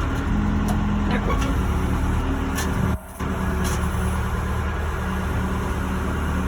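Backhoe loader's diesel engine running steadily, heard from inside the cab, with a brief dip in the sound about three seconds in.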